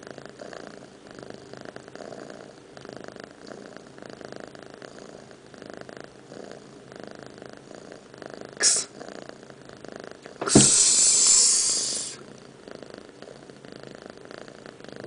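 Domestic cat purring steadily, its face right at the microphone. The purr is broken by a brief rasping noise about nine seconds in, and a louder one about a second and a half long soon after.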